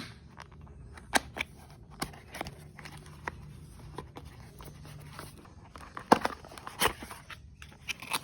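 Unboxing sounds of a smartphone and its packaging being handled: scattered clicks, taps and rustling of cardboard and plastic, with a few sharper knocks, the loudest about six and seven seconds in.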